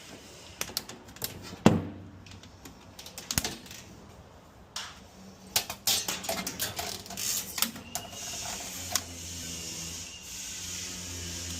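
Irregular sharp clicks and knocks of hardware and tools being handled, the loudest about a second and a half in and a quick run of them past the middle, then a steady hiss with a low hum.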